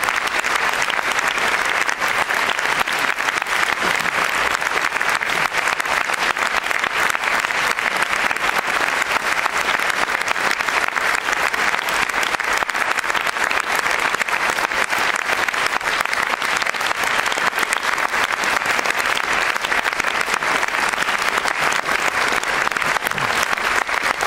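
Large audience applauding steadily, a dense, even clapping.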